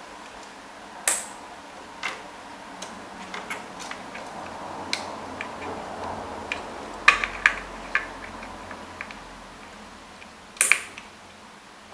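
Push-pin fasteners of a Socket 775 CPU cooler being pressed down into the motherboard, snapping in with sharp clicks: the loudest about a second in, a quick cluster around seven to eight seconds in, and one near the end, with smaller ticks of handling in between.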